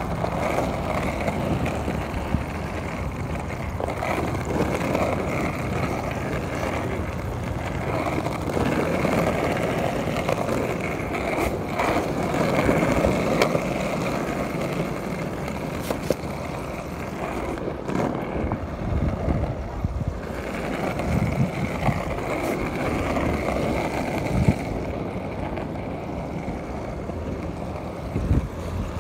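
Penny board wheels rolling over asphalt: a steady rolling rumble with a click or knock now and then as the wheels cross cracks.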